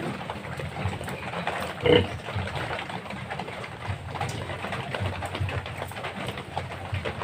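Sow and newborn piglets: low grunting throughout, with one short, louder squeal about two seconds in.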